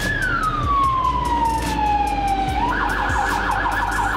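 Ambulance siren heard from inside the moving ambulance's cab, sounding on an emergency call: a slow wail falling in pitch, switching about two and a half seconds in to a fast yelp of about six sweeps a second, over the low rumble of the engine.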